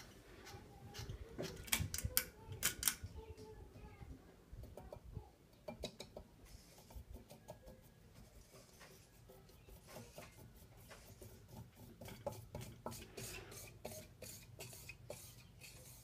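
Hunter Low Profile II ceiling fan running with a faint low hum, with irregular light clicks and rattles, loudest about two to three seconds in.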